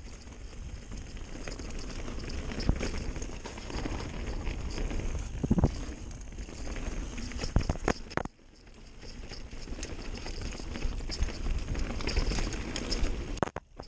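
Mountain bike riding fast down a dirt trail: steady tyre and wind noise with rattles from the bike and several sharp knocks over bumps. The noise drops away for a moment about eight seconds in.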